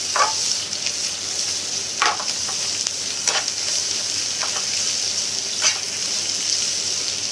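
Sliced sausages, onion and green pepper sizzling in oil in a nonstick frying pan, a steady high hiss. A metal ladle stirs them, scraping and knocking against the pan every second or two.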